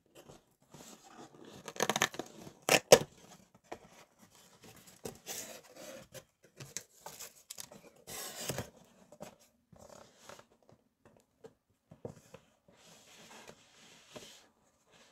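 Cake packaging being opened and handled: tearing, scraping and rustling of the box and wrapping in irregular spurts, loudest as a few sharp snaps about two to three seconds in.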